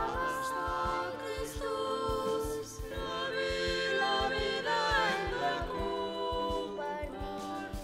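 Background music: voices singing long held notes in harmony, like a choir, over a soft steady beat.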